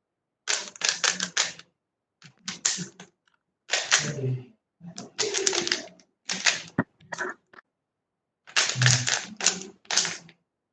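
Rubik's cube being turned: runs of rapid plastic clicking and clacking in about six short bursts, with complete silence between them.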